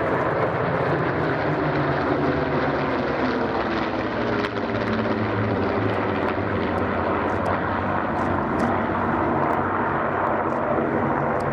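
Piston-engined propeller warbird flying past, its engine a loud steady drone whose pitch falls slightly a few seconds in.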